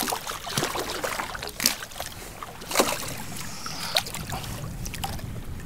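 Hooked speckled sea trout thrashing at the surface beside a kayak, throwing up a string of irregular sharp splashes, the loudest a little under 2 and 3 seconds in.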